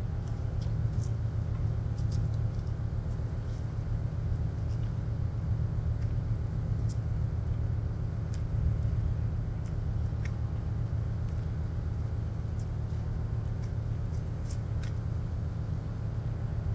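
Steady low motor rumble that holds at one level throughout, with faint scattered clicks over it.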